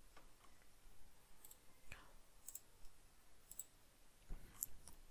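Faint computer mouse clicks, scattered irregularly over near-silent room tone, with one a little louder about two seconds in and a few close together near the end.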